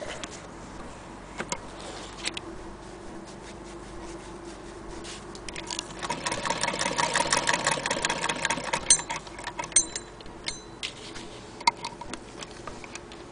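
Hand-cranked Singer Model 99K sewing machine stitching: rapid, even mechanical clicking that builds about five seconds in and runs for about four seconds, with scattered single clicks and knocks before and after.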